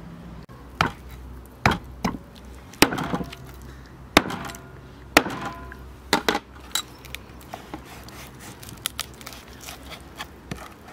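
Knife cutting raw fish on a wooden cutting board: a string of sharp knocks as the blade hits the board, with short scrapes of the blade through the flesh, then lighter ticks in the last few seconds.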